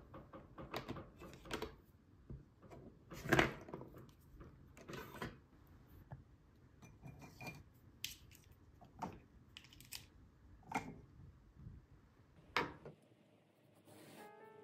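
Pens, markers and other desk items being handled and set down on a desk: a string of light clacks and rattles about a second apart, the loudest about three seconds in. Soft piano music comes in near the end.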